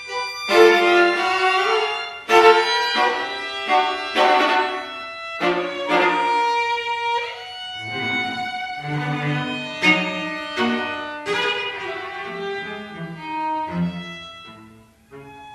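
Violin, viola and cello trio playing contemporary chamber music: a string of sharp, accented bowed attacks and chords, with the cello's low notes coming in about halfway through. It grows quieter near the end.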